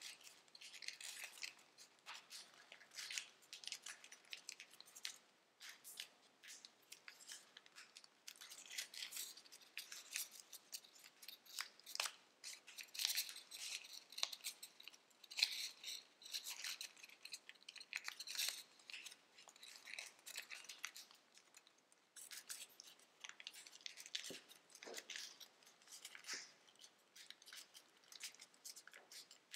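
Tissue foil origami paper crinkling and rustling as fingers fold, pinch and shape it, in faint, irregular crackles.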